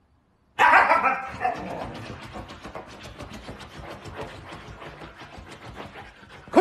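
A husky gives a loud, short vocal call about half a second in, then paws and scratches at a fabric mat in a run of quick scratching strokes.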